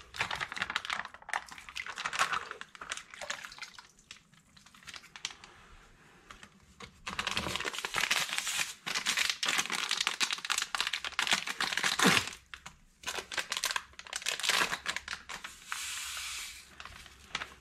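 Small packet of citric acid crinkling and rustling as it is handled and torn open, in several spells of crackly rustle with a quieter pause a few seconds in.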